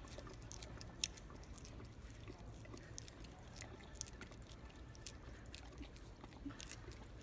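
Dog licking peanut butter from a small cup: a run of quick, irregular wet smacking clicks, with one sharper click about a second in.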